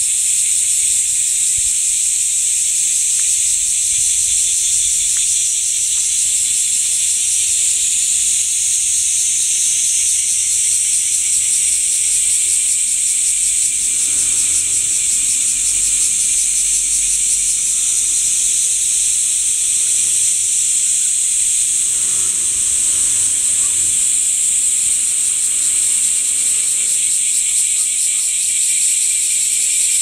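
A loud chorus of summer cicadas: a dense, steady, high-pitched buzzing that never lets up.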